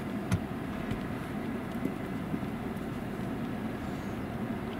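Steady low rumble of a stationary vehicle, with one sharp click about a third of a second in.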